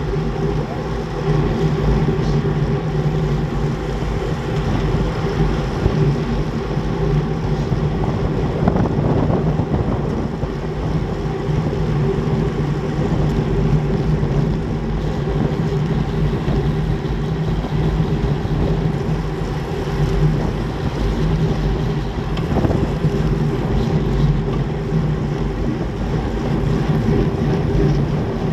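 Steady wind rushing over a bike-mounted camera's microphone, with road and tyre rumble, from a road bike riding at about 40 km/h. A steady low hum runs underneath.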